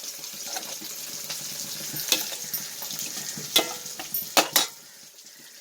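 Indian mackerel pieces shallow-frying in coconut oil in a pan: a steady sizzle with a few sharp clicks in the middle, growing quieter near the end.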